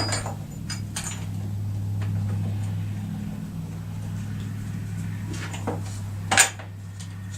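Metal tools and saw parts clinking and being set down during work on a chainsaw, a few sharp clinks with the loudest about six and a half seconds in, over a steady low hum.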